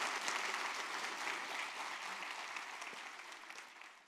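Audience applauding, a dense patter of many hands clapping that steadily fades away toward the end.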